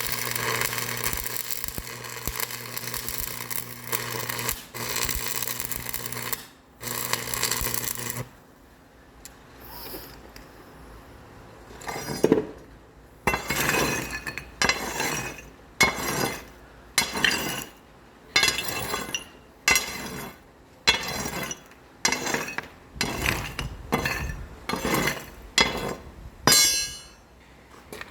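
Steady mechanical noise with a low hum that stops about eight seconds in. A few seconds later comes a long run of over twenty short metallic clinking strokes, about one and a half a second, like a metal tool striking or scraping metal.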